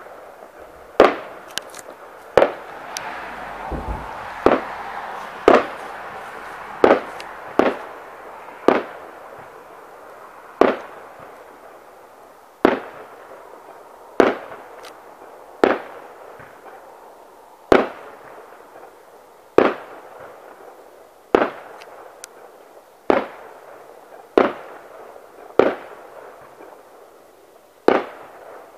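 Fireworks shells bursting one after another, a sharp bang every one to two seconds, each trailing off in an echo, over a steady hiss that is stronger in the first half.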